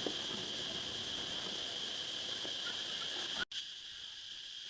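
Steady high-pitched insect chirring in the background. It cuts out for an instant about three and a half seconds in, then goes on more quietly.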